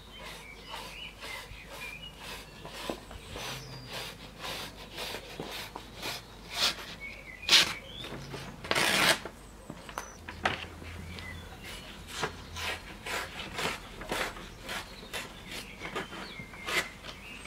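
A large sheet of paper being creased and torn along a fold: a run of short rubbing and rustling strokes, with a longer tear about nine seconds in.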